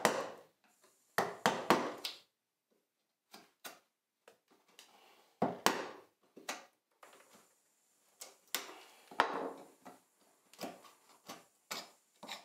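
Bench chisel pushed by hand into a softwood board, chopping and paring waste out of a dovetail: about a dozen irregular sharp wooden knocks and snaps, with scraping between them.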